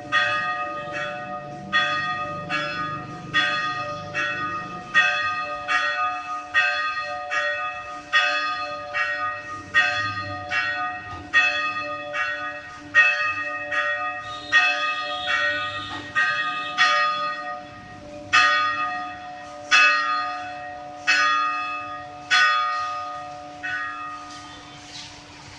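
Church bells ringing, struck about one and a half times a second, each stroke leaving a long ringing hum beneath the next. Near the end the strokes stop and the ringing dies away.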